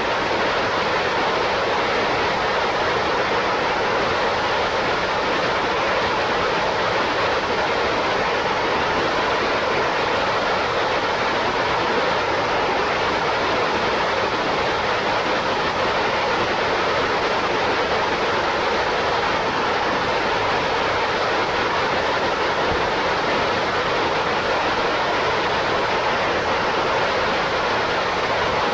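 Sirius hybrid rocket engine firing steadily on a horizontal static test stand: a constant, unchanging rushing noise, strongest in the middle range, with little deep rumble.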